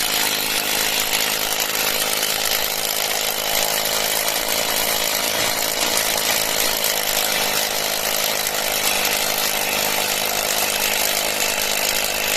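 Cordless brushless rotary hammer drilling into concrete, running steadily at full speed with its hammering action.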